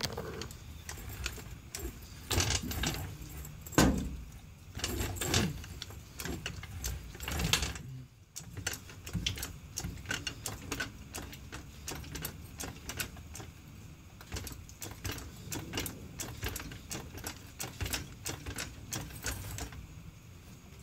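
Metal clicking and clanking as a floor jack is worked under a pickup's rear axle. A few heavier clanks come in the first half, then a run of quicker, lighter clicks.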